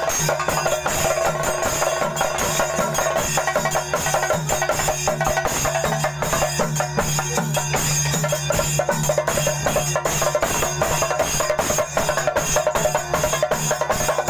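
A group of chenda drums beaten with sticks, playing a fast, dense rhythm, with a steady drone underneath.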